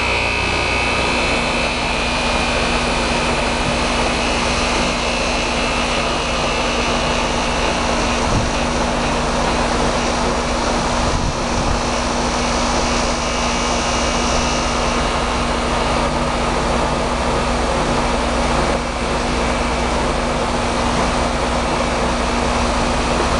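Indoor air handler of a 2005 Rheem heat pump running in cool mode: the blower moves air steadily with a constant hum, while a higher hiss of refrigerant flowing through the system as it starts up fades out over the first ten seconds or so.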